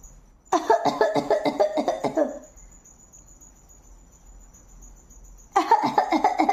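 A person fake-coughing in two fits, each a rapid string of short, voiced coughs. The first fit starts about half a second in and lasts around two seconds; the second starts near the end.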